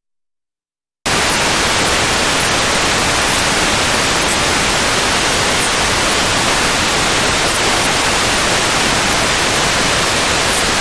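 Loud, steady static hiss, like white noise, that cuts in abruptly about a second in after dead silence.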